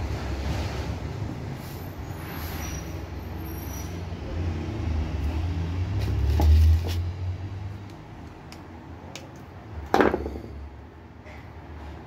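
Handling noise from twisting a thermal fuse's wire leads onto the lead wires of a fan motor coil: light rustling and faint ticks over a low rumble that swells about six seconds in, then one sharp click about ten seconds in.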